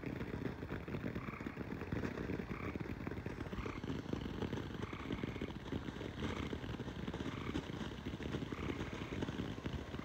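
Ground fountain firework spraying sparks with a steady, dense crackle.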